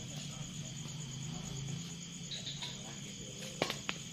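Crickets chirping steadily, with two sharp racket hits on a badminton shuttlecock close together near the end as a rally starts.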